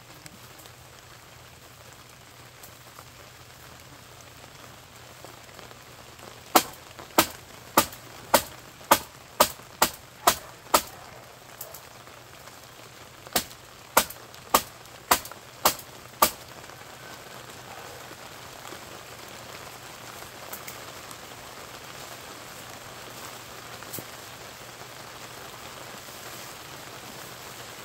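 A run of about nine sharp clicks, roughly two a second, then after a short pause six more. Under them is a steady hiss.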